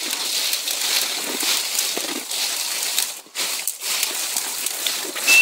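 Bramble stems and dry leaves rustling and crackling as someone pushes through thick undergrowth, with brief pauses about three seconds in. A louder rustle and the start of a short, high, steady whistle note come at the very end.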